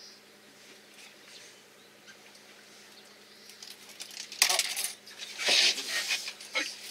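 A red sea bream being held down on a fibreglass boat deck for ikejime, clattering and scraping against the deck in loud, rattling bursts that start about four and a half seconds in and come again around a second later.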